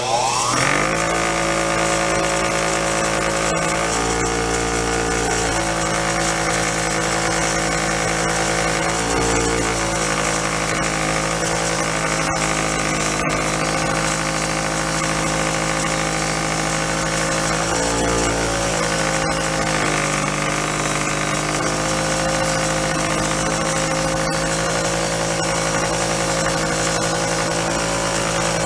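Bench grinder running with a wire wheel while a rusty chrome motorcycle exhaust pipe is held against it, the wire brush scratching rust off the metal over the steady motor hum. The motor is just coming up to speed at the start, and its note dips briefly three times as the pipe is pressed in.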